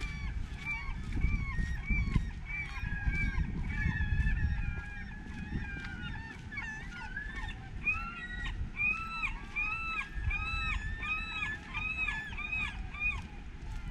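Many birds calling over one another with short rising-and-falling cries. In the second half one bird gives a steady run of about nine cries, roughly two a second.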